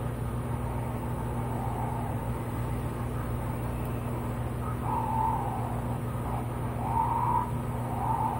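Radio-controlled animatronic zombie riding a tricycle: a steady low hum under short mid-pitched cries, each about half a second long, every second or two.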